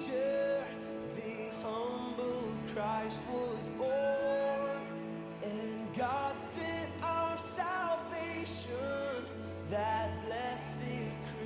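A song: a melodic vocal line sung over a steady instrumental accompaniment with sustained chords and a bass line.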